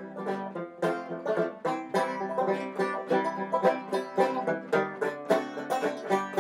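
Background music: fast picking on a plucked string instrument in a banjo, bluegrass style, with many quick notes.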